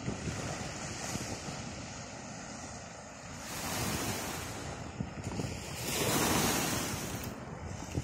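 Sea waves breaking and washing up the shore as a steady surf hiss, swelling twice: once about three and a half seconds in, and more loudly about six seconds in.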